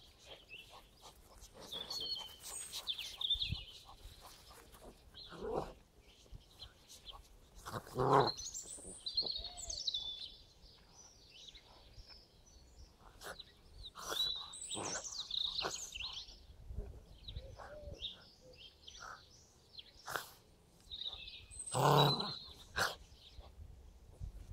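Staffordshire bull terrier puppy and schipperke play-fighting, giving a couple of short dog vocalisations, the loudest about eight seconds in and again near the end. Songbirds chirp in the background throughout.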